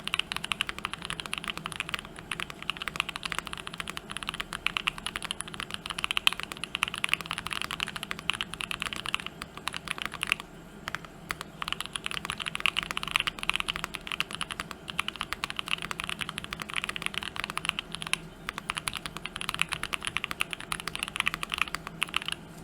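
Fast continuous typing on a TKC Portico custom mechanical keyboard with an FR4 plate, lubed switches and GMK keycaps: dense key clacks with a couple of brief pauses.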